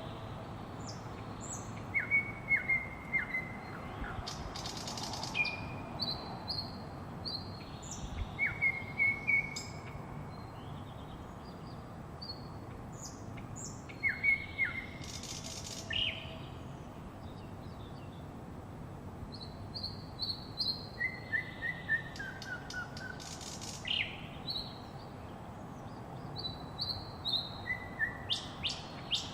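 Several small songbirds chirping and singing in short repeated phrases, some as quick runs of falling notes, with a few brief harsh rasping calls, over steady background noise.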